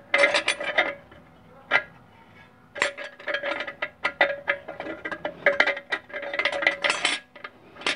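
Steel and friction clutch plates of a 700R4 transmission's low/reverse clutch clinking against each other and the case as they are set in by hand. The clicks come in quick clusters, each with a short metallic ring, and stop a little after seven seconds.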